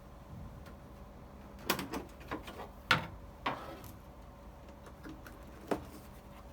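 A replacement filter cartridge being handled and fitted: about six short clicks and knocks, the loudest about three seconds in.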